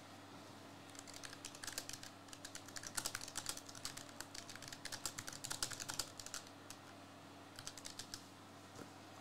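Typing on a computer keyboard: a quick run of key clicks lasting several seconds, then a short burst of keystrokes near the end.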